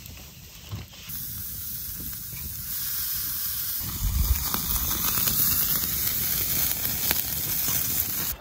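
Steaks sizzling on a wire grill grate over a campfire. The sizzle starts about a second in and grows louder, with a low thud about four seconds in.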